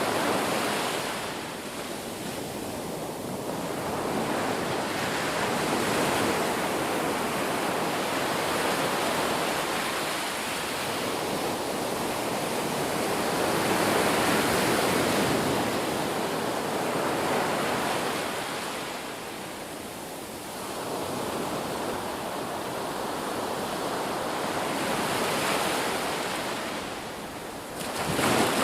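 Sea waves breaking and washing onto the shore, a continuous surf that swells and ebbs in slow surges every several seconds, with a brief sharper surge near the end.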